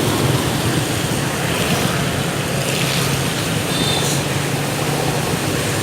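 Motorbike riding on rain-wet streets: a steady low engine hum under a constant rush of wind noise on the microphone and tyre hiss.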